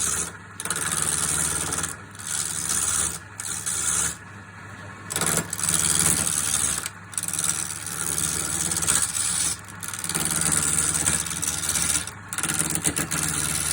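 Wood lathe motor running steadily while a turning tool cuts the spinning wood, a rasping hiss in repeated passes of one to three seconds with short breaks between them.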